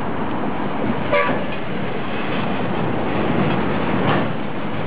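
71-630 tram running with a steady rolling noise, sounding a brief toot of its signal about a second in.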